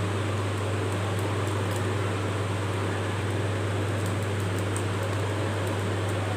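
Steady low hum with an even hiss, like a running fan, with a few faint light ticks over it.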